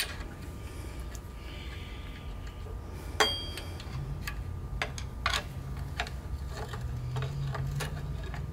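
Screwdriver prying at the small spring-steel hold-down clips on the brake shoe pins of a Ford 4000 tractor's drum brake: irregular metal clicks and taps, with one louder clink that rings briefly about three seconds in.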